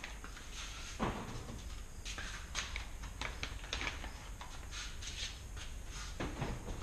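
Handling noises from unpacking a new bicycle: scattered small clicks and rustles, with a duller knock about a second in and another near the end, over a steady low hum.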